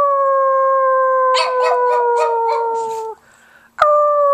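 Pug howling: one long howl that slides slowly down in pitch and breaks off about three seconds in, then a fresh howl starts near the end.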